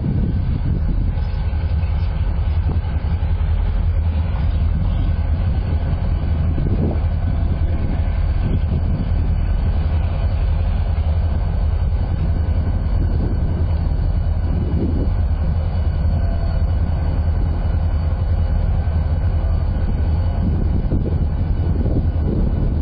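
Canadian Pacific EMD SD40-2 diesel locomotives running steadily with a low engine rumble as they roll slowly up the track during switching moves.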